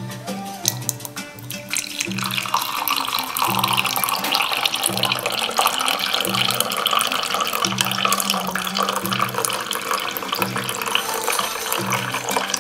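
Milk pouring in a thin steady stream into a glass tumbler, starting about two seconds in and running on, over background music with a steady beat.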